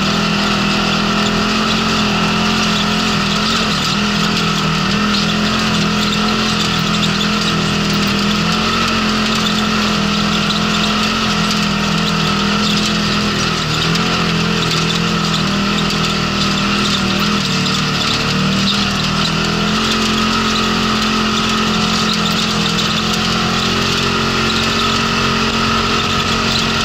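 Polaris RZR side-by-side's engine running steadily at driving speed, its pitch shifting a little now and then with the throttle, heard from inside the open cab. Constant noise of tyres on a gravel track runs with it.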